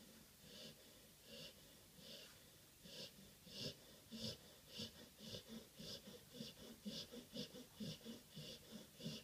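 Faint, wheezy rhythmic breathing that quickens about halfway through, from about one and a half breaths a second to nearly three.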